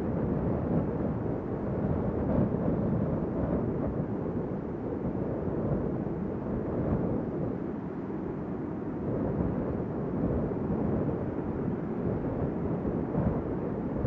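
Wind blowing: a low, even rush that swells and eases in gentle gusts.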